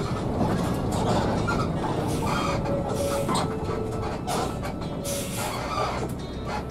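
Cabin noise of an intercity bus on the move: a steady engine and road rumble, with a few faint short tones over it.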